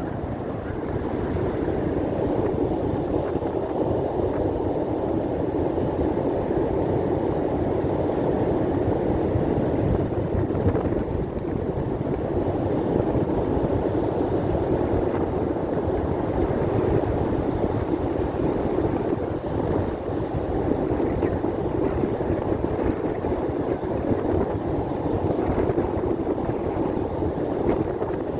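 Steady roar of a rough, wind-driven sea, with strong wind buffeting the microphone.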